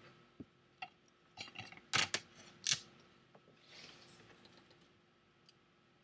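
Workbench handling noise: a handful of light clicks and taps in the first three seconds, then a short soft hiss about four seconds in, as a piece of Kapton tape is taken and parts are handled.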